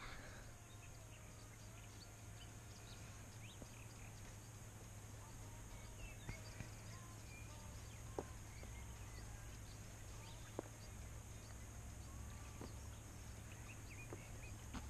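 Faint, quiet outdoor ambience: a low steady hum and hiss, with a few faint short chirps and a couple of soft clicks.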